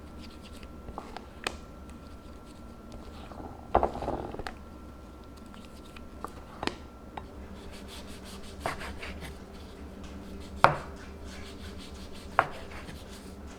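Kitchen handling sounds: scattered knocks and sharp clicks of utensils and dishes. There is a cluster of knocks about four seconds in and a run of rapid light ticks in the second half, over a faint steady hum.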